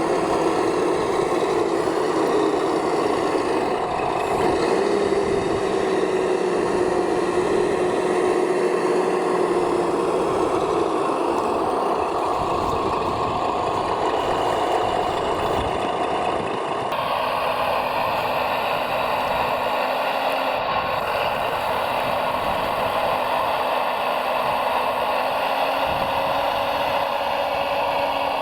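Radio-controlled scale construction machines running, with a steady motor whine whose pitch drifts slowly up and down. The sound changes abruptly about two-thirds of the way through.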